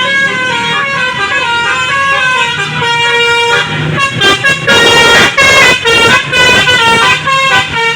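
Basuri musical bus horn (telolet horn) playing a fast tune of stepped tones. About halfway in it gets louder and harsher, with short breaks between blasts.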